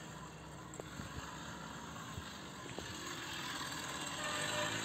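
Faint road traffic from a main road, a low steady hum that grows a little louder near the end, with a few light clicks.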